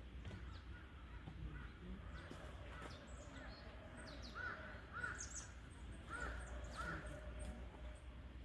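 Crows cawing outdoors, four calls in two pairs in the second half, over faint high chirps of small birds and a steady low hum.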